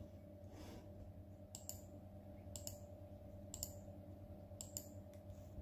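Laptop keys clicking under a kitten's paws as it sits and shifts on the keyboard: light paired clicks about once a second, over a faint steady hum.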